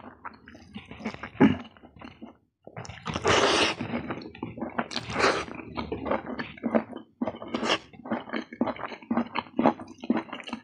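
Close-miked eating by hand: wet chewing and lip smacking with many short clicks, and fingers squishing rice and curry on the plate. Two longer, louder bursts come about three and five seconds in.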